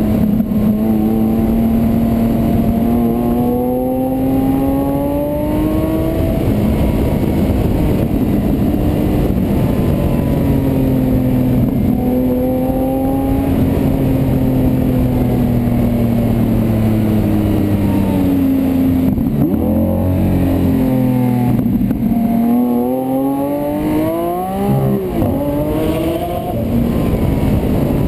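Lamborghini Aventador LP700-4's naturally aspirated V12 engine and exhaust under way, the revs climbing and falling as it pulls through the bends. Twice in the latter part, the pitch swings quickly up and down in downshifts with throttle blips.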